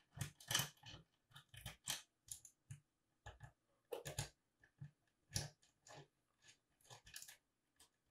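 Faint, irregular clicks and light scrapes of small metal parts being handled with a hex key on the opened telescope camera rotator's drive-spindle assembly.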